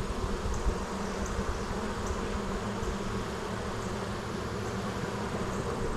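Honeybee colony buzzing steadily around an opened hive during an inspection, a constant low hum of many bees.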